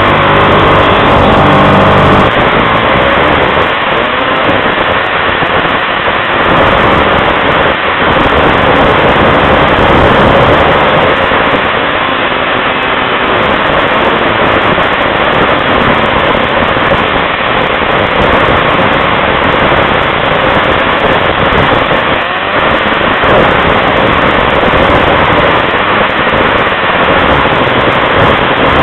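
Snowmobile engine running at speed, heard loud and close from aboard the moving sled, with a steady rushing noise throughout.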